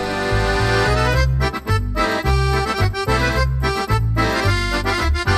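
German folk music (Volksmusik) led by an accordion, with held chords over a bouncing bass line.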